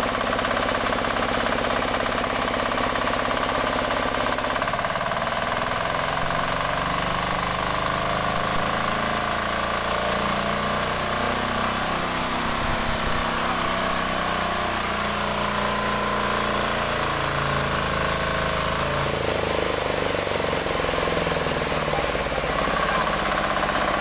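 18 hp diesel engine of a new sawmill machine running on test, with a steady mechanical tone that shifts a few seconds in and again near the end.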